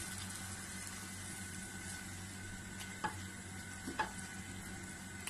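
Chicken and vegetables in tomato purée sizzling in a nonstick wok while being stirred with a spatula, which taps the pan twice, about three and four seconds in.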